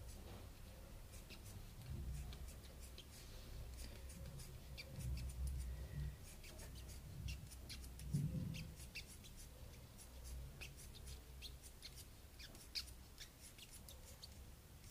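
Scissors cutting a rubber strap: quiet, irregular snips and small clicks, with low rumble from the strap being handled.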